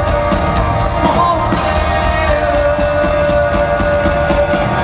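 Live rock band playing a loud, steady instrumental passage with drums, with a long sustained note held over it. Recorded in an arena with the muddy, echoing sound of a fan's recording.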